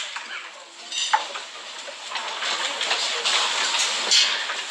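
Scattered clapping and crowd noise from a seated dinner audience. There are two brief ringing clinks of tableware, about a second in and again about four seconds in.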